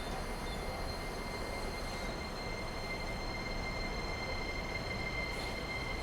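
Train at a station platform: a steady rumble with a thin, steady high squeal over it.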